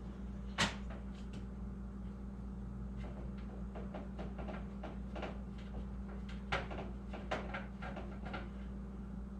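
Clicks and taps of a hand screwdriver and screws while motherboard screws are driven in by hand: one sharp click about half a second in, then a run of quieter, irregular ticks, over a steady low hum.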